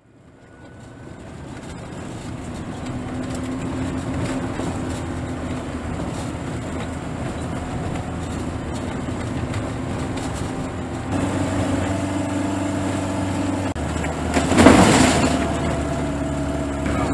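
Car engine running with tyre noise on a gravel road, heard from inside the cabin. The engine note changes about 11 and 14 seconds in, and there is one brief loud thump about 15 seconds in.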